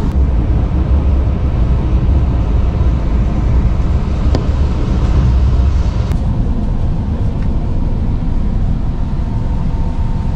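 Steady low rumble of a moving double-decker express train heard from inside the coach, with a couple of faint clicks about four and six seconds in.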